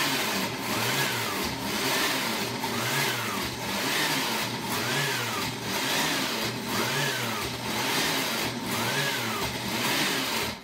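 Countertop blender motor running hard through a thick tahini dressing, its pitch rising and falling about every two seconds as the load changes. It cuts off suddenly at the end.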